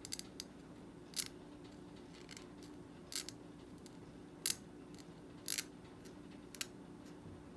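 Gracey 13-14 curette blade scraping in short working strokes against a plastic typodont molar, about one stroke a second.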